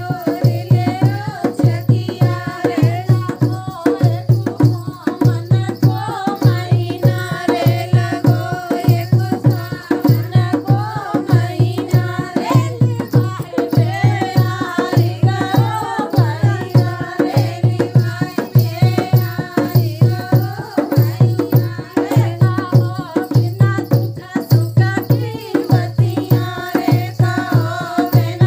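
Indian rural folk song (dehati geet) played as dance music: a voice singing over a steady, regular drum beat with other percussion.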